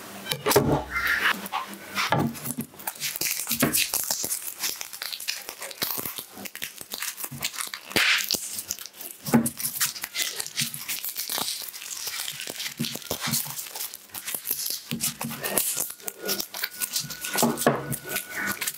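Dry, papery garlic skins crackling and tearing as a garlic bulb is pulled apart and its cloves peeled by hand on a plastic cutting board, with occasional light knocks of the bulb against the board.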